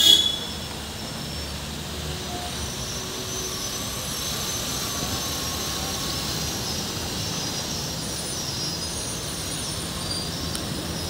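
Steady road-traffic noise from a heavy lorry, cars and motorbikes on a steep hairpin road, with faint high thin whines above it. A short, sharp sound right at the start is the loudest moment.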